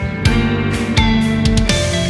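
Background music: plucked guitar notes over a steady bass line.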